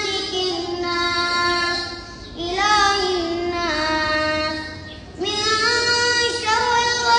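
A boy's voice chanting Quran recitation aloud while leading the prayer: three long melodic phrases with drawn-out, wavering notes and short breaths between them.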